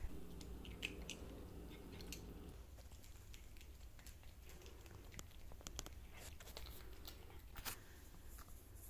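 A cat chewing dry kibble, a run of faint, scattered crunches.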